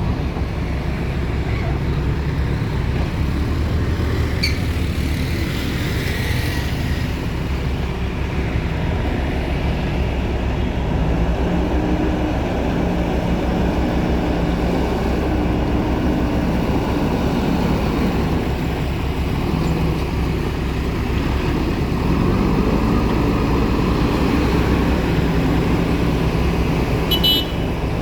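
Diesel engine of heavy construction machinery running steadily under work, rising in pitch about three-quarters of the way through as it revs up. A brief high-pitched tone sounds near the end.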